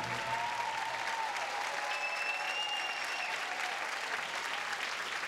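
Large audience applauding as the final held chord of the orchestra dies away in the first second. A single held whistle rises over the clapping about two seconds in.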